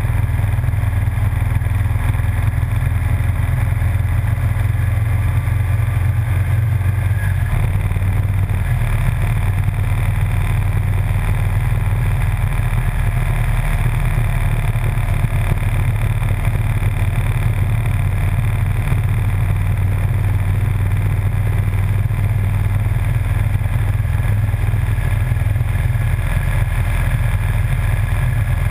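Motorcycle cruising at a steady road speed: a loud, unbroken low rumble of engine, wind and road noise, with no change in revs.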